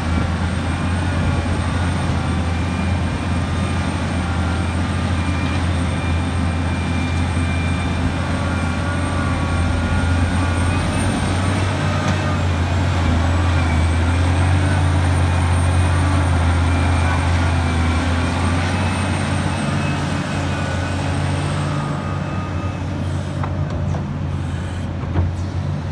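Liebherr 984 hydraulic mining excavator's diesel engine and hydraulics running under load as it digs, swings and dumps into a truck: a steady deep drone with a thin high whine above it, swelling a little midway. A few short knocks near the end.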